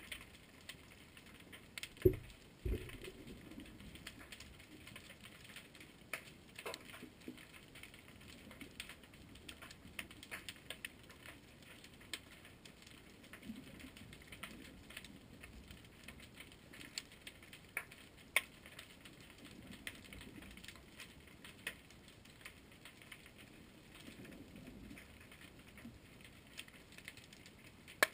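Underwater ambience: a faint, irregular crackle of short clicks, with two low thumps about two seconds in.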